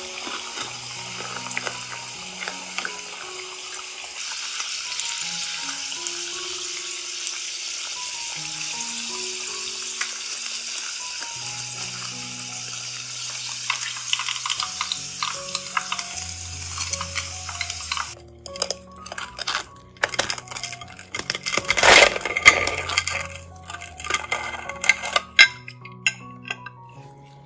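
Hot oil sizzling steadily as breaded potato-cheese balls shallow-fry in a pan, over soft background music. About 18 seconds in the sizzle stops, giving way to sharp crisp crackles of a knife cutting through the fried crumb crust, loudest a few seconds later.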